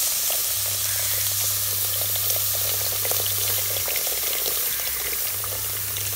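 Water pouring in a steady stream from a plastic jug into a clay pot of hot frying masala, splashing and sizzling as it lands.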